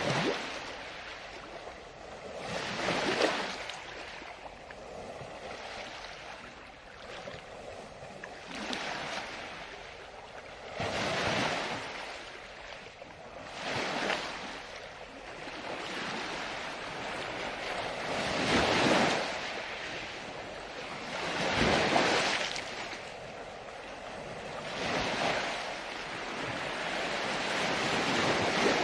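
Ocean waves breaking, a surge of surf every two to five seconds that swells up and falls away again.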